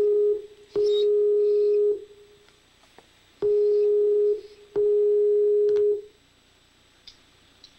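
Outgoing ringing tone of an internet video call played through the computer's speakers: a steady mid-pitched tone sounding in pairs of roughly one-second rings, two pairs with a pause between, then stopping about six seconds in while the call waits to be answered.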